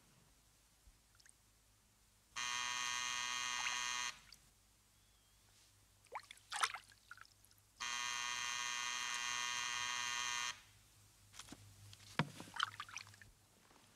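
An electric buzzer sounds twice, each a steady buzz of about two seconds, the second starting a few seconds after the first. Between the buzzes and after the second, water sloshes in a bath as the bather moves.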